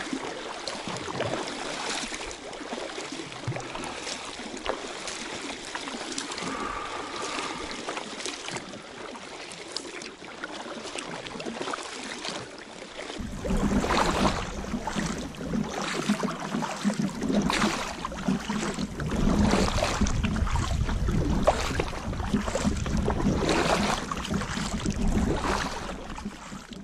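Kayak paddle strokes dipping and splashing in calm water, in a steady rhythm. About halfway through the strokes grow louder, with a low rumble added underneath.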